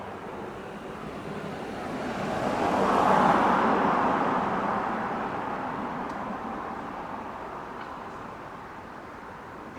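Road traffic: a vehicle drives past close by, its tyre and engine noise rising to a peak about three seconds in and then fading away.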